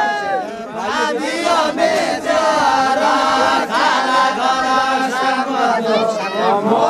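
A group of dancers singing a Deuda folk song together, several voices holding long, gliding notes in chant-like phrases.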